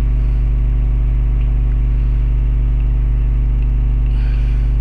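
Loud, steady electrical mains hum: a low buzz with a ladder of evenly spaced overtones, picked up by a webcam's microphone.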